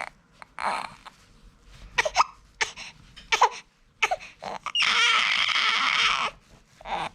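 Short hiccups at uneven intervals, broken by one longer whining cry about five seconds in that lasts a second and a half.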